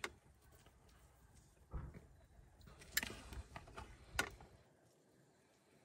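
Quiet handling sounds from a silicone spatula spreading batter in a mini waffle iron: four or five soft, separate clicks and taps.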